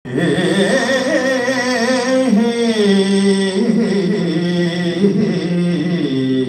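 A man singing a Sanskrit prayer verse in a slow, ornamented melody, his held notes wavering, over a steady drone.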